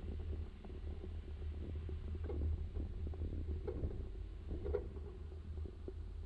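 Steady low rumble of a vehicle driving over a rough, worn road, heard through a camera mounted on the vehicle, with a few light knocks from bumps.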